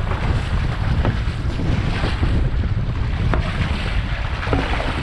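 Wind buffeting the microphone in a heavy, steady low rumble over a wash of water noise, with a few brief sharp sounds about once a second.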